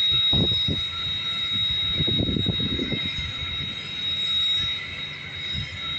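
Railroad train running, with a steady high whine over uneven low rumbling that swells and fades.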